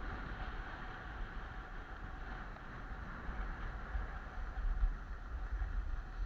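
Skis sliding and scraping over groomed, packed snow during a steady downhill run, with wind gusting on the skier's camera microphone.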